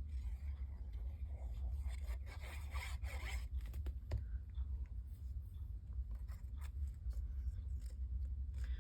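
Paper and cardstock pieces rustling and scraping as they are handled while a card is assembled, with a single small click about four seconds in, over a steady low hum.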